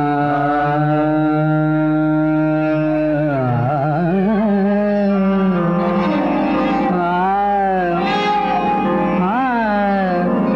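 A male voice singing a Hindustani classical thumri in Raag Des. It holds long notes and slides through ornamented turns and glides, over a steady drone.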